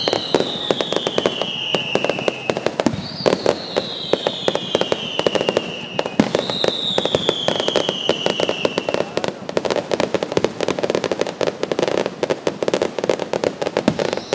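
Fireworks display: a dense, continuous run of sharp pops and crackles from bursting shells. A high whistle falling in pitch sounds three times, each about two to three seconds long, in the first nine seconds.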